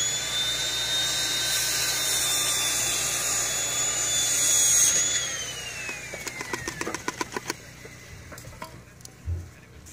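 Perlite insulation poured from a metal coffee can into a tin can, a loud granular hiss with a high whistling tone over it that glides down as the pour ends about five seconds in. A quick run of light clicks follows.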